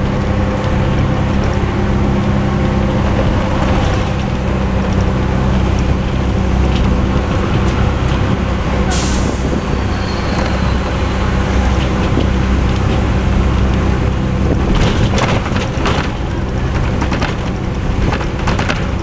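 Cummins LT10 diesel engine of a non-air-conditioned Leyland Olympian double-decker bus running steadily as the bus drives, heard from inside the bus. A short sharp hiss of air from the bus's air system comes about nine seconds in, and a cluster of rattles follows a few seconds later.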